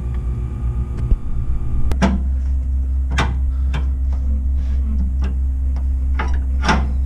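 Several short metallic clanks as the B&W turnover gooseneck hitch's quick-release handle and locking pin are worked by hand, over a steady low hum.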